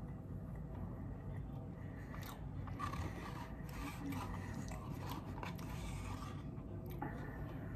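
A person chewing breaded KFC chicken nuggets close to the microphone, with small crisp crunches and mouth clicks coming more often from about two seconds in, over a steady low hum.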